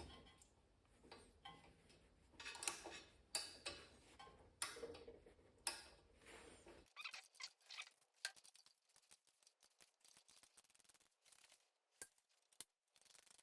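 Faint, irregular clicks and ticks of a hand tap being worked into a freshly drilled hole, a few separate clicks in the first half, then only tiny ticks.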